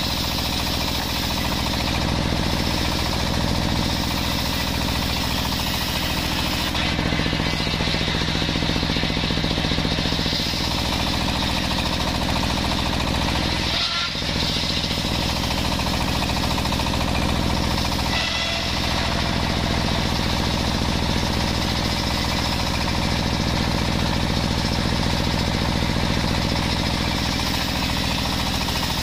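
Large table-mounted circular saw running and ripping jackfruit-wood boards: a loud, steady mechanical drone of the saw and its drive, with small shifts in its low tone as the blade takes the wood.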